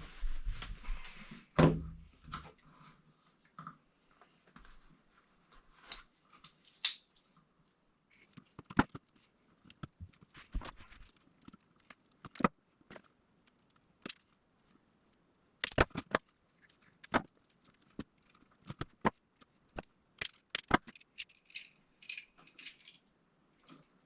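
Scattered sharp clicks, taps and light knocks from hand work with tools and electrical wire, sometimes several in quick succession, with quiet gaps between them.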